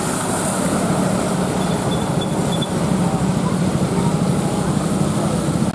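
Bus engine running close by, a steady low rumble with a constant hiss over it; it cuts off suddenly at the end.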